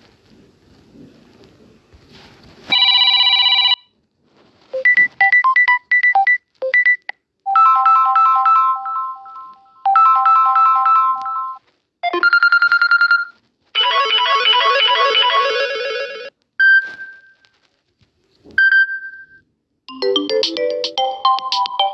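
Samsung Galaxy A12 stock ringtones played one after another: a run of short electronic chimes, beeps and few-note melodies, each separated by a brief silence. A longer, busier melody starts near the end.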